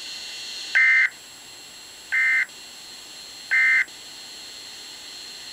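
Three short, identical Emergency Alert System digital data bursts, each about a third of a second long and about 1.4 seconds apart. Their shortness and their place straight after the spoken warning make them the end-of-message (EOM) code that closes an EAS alert.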